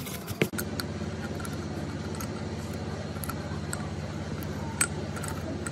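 Steady low mechanical hum, starting about half a second in, with a few light clicks of metal parts being handled.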